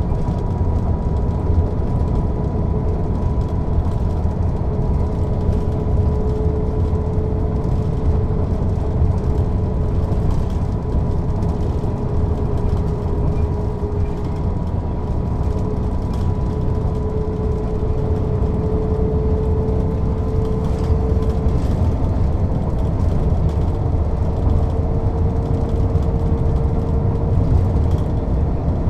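Mercedes-Benz O 407 city bus under way, heard from on board: its six-cylinder diesel engine running as a steady low rumble, with a steady whine that drifts slightly up in pitch partway through.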